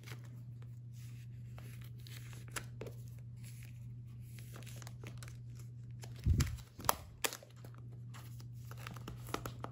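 Plastic photocard binder sleeves being handled: faint crinkling and small clicks over a steady low hum, with a soft thump about six seconds in.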